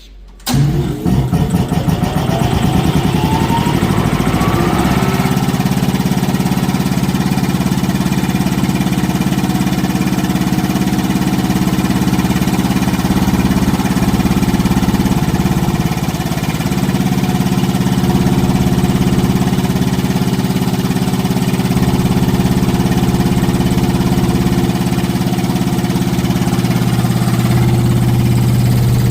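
Quincy Model 5120 25 hp reciprocating air compressor starting up: it kicks in suddenly about half a second in, with a rising whine over the first few seconds as its motor comes up to speed, then runs steadily, pumping up tank pressure toward the roughly 150 psi point where the pressure switch contacts open.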